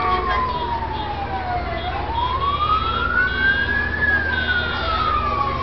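A siren wailing slowly: its pitch falls to a low point about two seconds in, rises over the next two seconds, and falls again near the end. A steady low rumble runs underneath.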